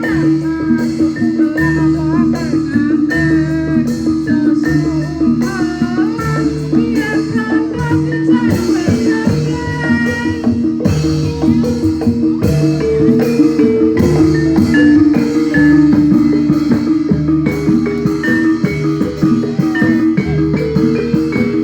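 Javanese gamelan music accompanying a barongan performance: struck metal keys play a repeating melody over drums, and the music runs on without a break.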